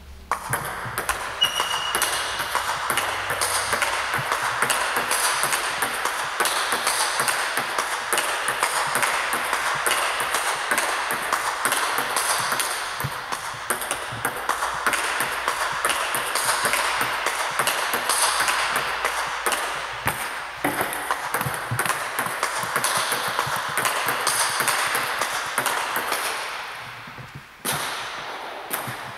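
Table tennis ball clicking rapidly off bats and table in a continuous rally of hits and bounces. One player feeds forehand topspin; the other answers with a backhand block, then a backhand topspin off the bounce. Near the end the rally stops briefly, then play starts again.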